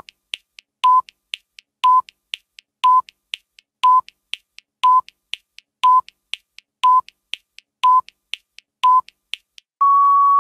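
Countdown timer sound effect: a short electronic beep once a second, with faint ticks between the beeps, and near the end a longer, slightly higher beep that marks time running out.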